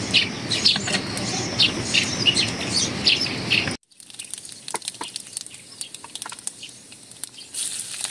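Birds chirping repeatedly over a steady outdoor background, cut off suddenly about four seconds in. Then a quieter stretch with faint scattered clicks, and a high sizzle of oil in a wok over a wood fire starting near the end.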